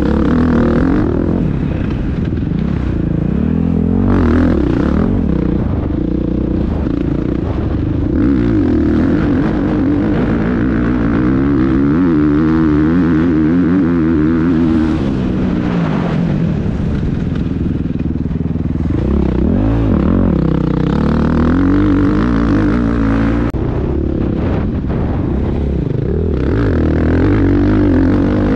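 Motocross bike engine under hard riding, its pitch climbing and dropping again and again as the throttle opens and closes and the gears change.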